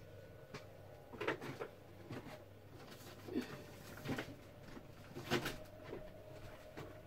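Faint, scattered knocks and rustles of a fridge being rummaged through, with a drawer or shelf bumping a few times.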